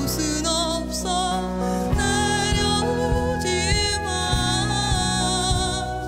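Slow, gentle ballad performed live: a woman singing with vibrato, accompanied by flute and a soft band, with the low accompaniment filling out about two seconds in.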